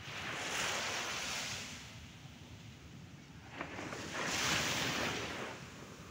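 Waves breaking and washing up the beach in two hissing swells, each rising and falling over about two seconds, about three and a half seconds apart.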